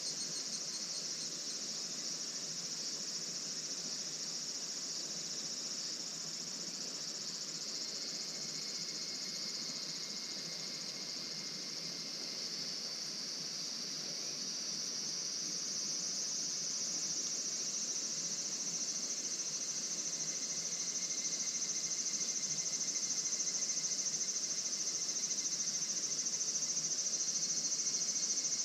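A chorus of crickets and other insects trilling steadily at a high pitch, with a fainter, lower trill coming and going. It grows a little louder about halfway through.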